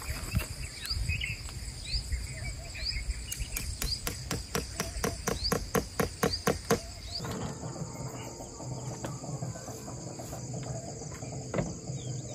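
A tent stake being struck into hard, dry ground: about a dozen quick knocks at three to four a second, over a repeated high rising chirp. About seven seconds in, this gives way to a steady insect chorus with a few scattered clicks.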